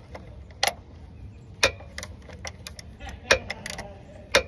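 Irregular sharp metallic clicks and clinks from hand tools and parts being handled while working under the vehicle, about five distinct clicks spaced unevenly.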